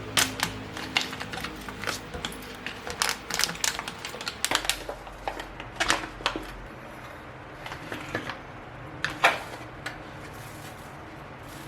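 Irregular light clicks and taps of small objects being handled, coming thick and fast for the first several seconds, then thinning out, with one louder knock about nine seconds in.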